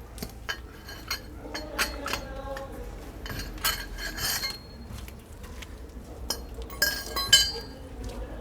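Metal hand tools and parts clinking and clattering against each other: a string of sharp metallic knocks and clicks, some ringing briefly, the loudest cluster near the end.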